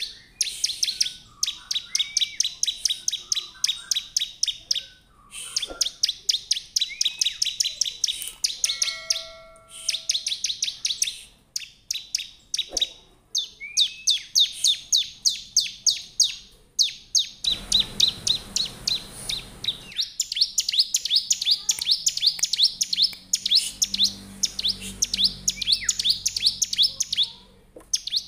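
Caged bar-winged prinia (ciblek) singing energetically: rapid trains of sharp, high chirps, many per second, in bouts a few seconds long with short pauses between them. A brief hiss sits under the song about two-thirds of the way through.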